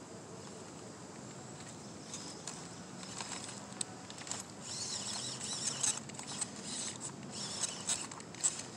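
Tyres of an RC rock crawler crunching and rustling through dry bark mulch as the truck crawls down the bank, a dense crackle of small clicks that grows louder from about three seconds in.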